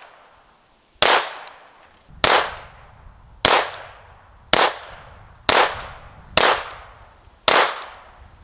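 Colt 1903 Pocket Hammerless pistol in .32 ACP firing seven shots in slow, steady succession, about one a second, each shot trailing off in a short echo.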